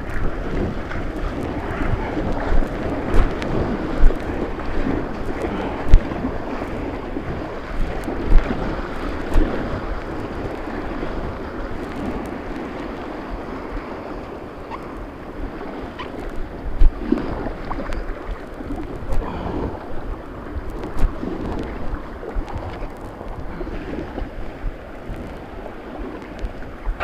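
White-water river rapids rushing and splashing around a kayak, with wind buffeting the microphone. Sharp knocks and splashes stand out now and then.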